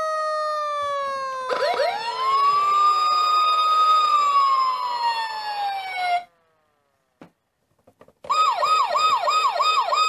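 Electronic siren from a Rescue Force Aerial Cannon toy fire truck. One wail winds down while a second wail rises, holds and falls, then cuts off suddenly about six seconds in. After a short gap with a couple of faint clicks, a fast yelp siren starts, about three cycles a second.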